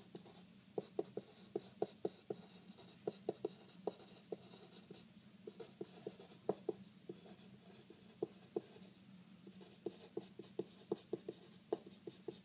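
Felt-tip pen writing on paper: many short, uneven clicks as the tip strikes and lifts for each letter, with a faint scratchy hiss while the strokes are drawn.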